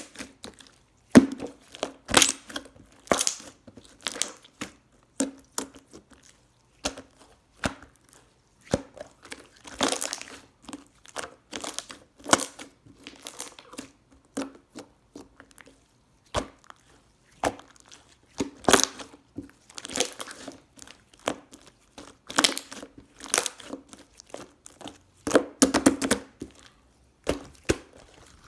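Irregular crinkling and tearing noises, short bursts coming about once or twice a second.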